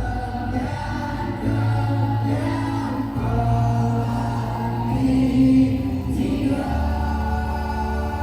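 Music with held, choir-like singing over a heavy bass, played loud through a large carnival sound system.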